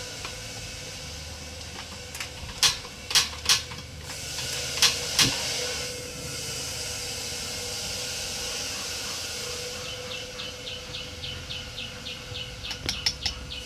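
Fermented snakehead fish sizzling in oil and fish sauce in a steel wok over a portable gas stove. There are several sharp clicks a few seconds in, and a quick run of light ticks, about five a second, near the end.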